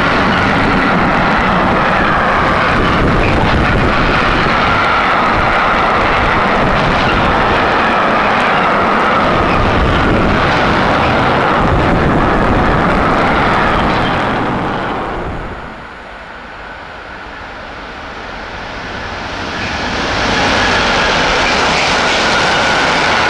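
Freight trains passing through a station at speed: a steady, loud rumble of wagon wheels on the rails as an intermodal train of swap bodies goes by. The noise falls away about fifteen seconds in and rises again about five seconds later as a freight train of tank wagons passes.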